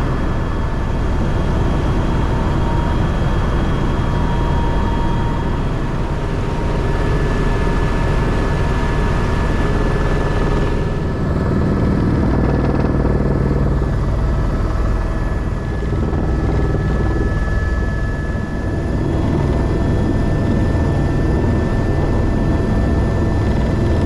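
Helicopter running, its rotor beating fast and steadily under a steady turbine whine. About halfway through the high part of the sound drops away for several seconds, then returns.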